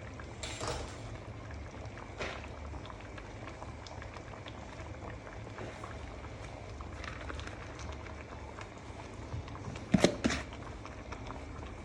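Pot of bitterleaf soup bubbling at the boil while it thickens, a steady bubbling hiss over a low rumble with small scattered pops. Two sharp knocks about ten seconds in.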